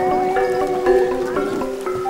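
Background music: a melody of held, pitched notes changing every half second or so.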